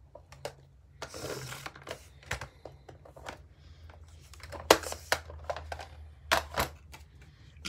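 Paper trimmer with a deckle blade cutting a strip of paper: a short scraping swish as the cutter slides along the rail about a second in, then a series of sharp clicks and knocks as the trimmer and paper are handled.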